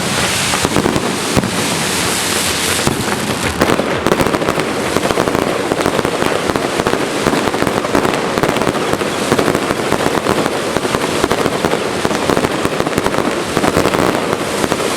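Fireworks going off in a dense, continuous crackle of many small rapid bursts, loud and without a break.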